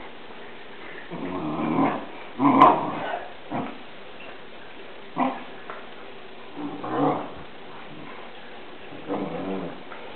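Two Newfoundland dogs growling at each other while play-fighting. The growls come in short bursts several times, and the loudest is about two and a half seconds in.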